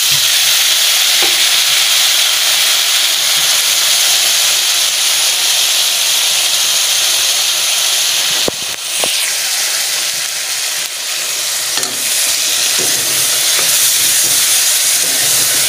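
Chicken pieces and freshly added ground spice masala sizzling loudly in hot oil in an aluminium kadai, a steady frying hiss. A couple of sharp clicks a little past halfway, and a metal spoon stirring through the pan near the end.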